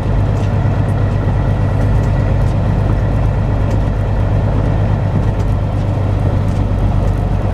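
Semi-truck's diesel engine running as the truck creeps along at low speed, heard from inside the cab as a steady low drone.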